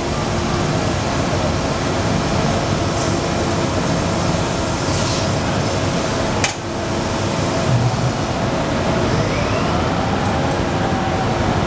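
SMT Swedturn ST12 CNC lathe running and turning: a steady machine noise with a constant hum. A sharp click comes about six and a half seconds in, and a tone rises about nine seconds in.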